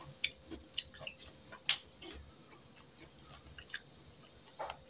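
Soft chewing and scattered small mouth and finger clicks as food is eaten by hand from a plate, over a steady high-pitched cricket trill.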